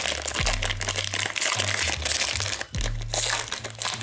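Plastic wrapper of a Panini Prizm trading-card pack crinkling as it is pulled open by hand, over background music with a low bass line.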